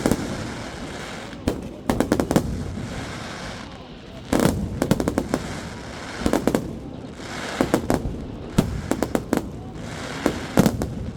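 Fireworks display going off: clusters of rapid crackling bangs every second or two, with rumbling in between.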